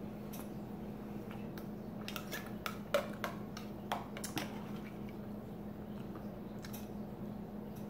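Metal fork scraping and clinking against the inside of an opened metal can of tuna, a cluster of sharp clicks a couple of seconds in, over a steady low hum.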